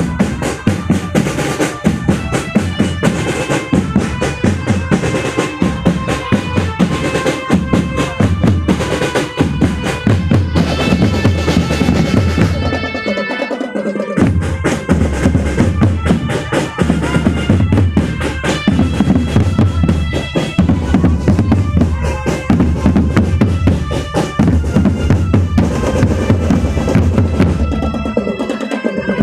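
Marching band playing: snare drums and bass drums beating a fast, dense rhythm with rolls under a held melody line. The bass drums drop out briefly about 13 seconds in and again just before the end.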